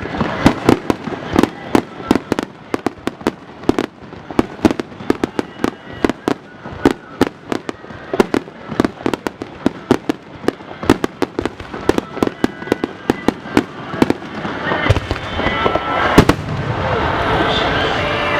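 Starmine fireworks: a rapid barrage of aerial shells bursting, several sharp booms a second. About fifteen seconds in, the separate bursts give way to a steady, louder wash of noise that keeps building.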